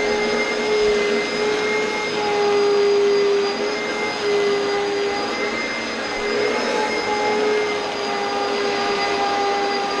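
Oreck XL2 upright vacuum cleaner running steadily over carpet: a constant rushing noise with a motor whine that wavers slightly in pitch.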